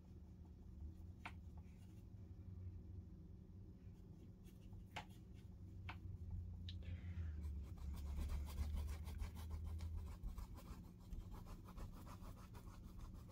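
Paintbrush scrubbing acrylic paint onto a stretched canvas: a fast run of scratchy strokes through the second half, after a few light clicks, over a low steady hum.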